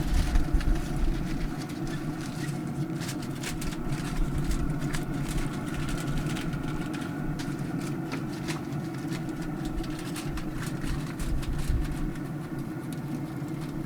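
Aluminium foil crinkling in many short sharp crackles as it is pressed over baking pans, over a steady low mechanical hum.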